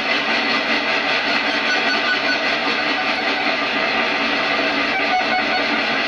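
A BMC46 microcontroller-based digital noise generator module puts out steady, dense digital noise with faint steady tones running through it. A few short pitched blips come in about five seconds in.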